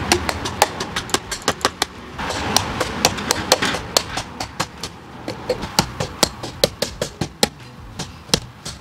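A hammer striking again and again, about three blows a second, driving a short angle-cut section of 1-inch black PVC pipe into the ground as a sleeve for a greenhouse hoop.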